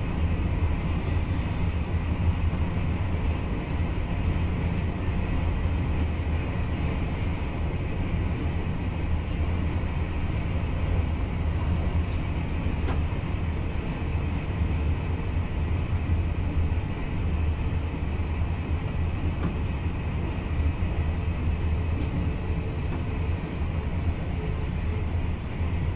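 VIRM double-deck electric train running along the line, heard from inside the driver's cab: a steady low rumble of wheels on rail and running gear, with a few faint clicks.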